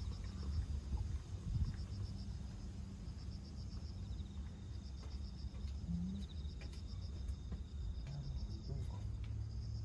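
Insects chirping in repeated, evenly pulsed high trills, over a steady low rumble.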